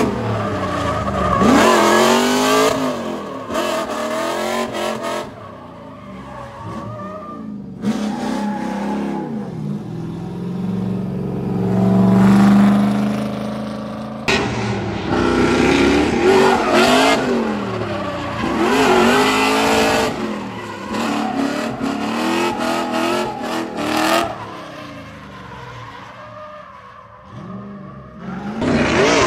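Drift car's engine revving hard, the revs rising and falling over and over as it slides through the corners, with tyre squeal and skidding under it.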